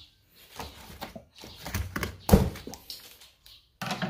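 Handling noise from unpacking BMX parts: a few knocks and clunks with rustling, the loudest a sharp knock a little over two seconds in.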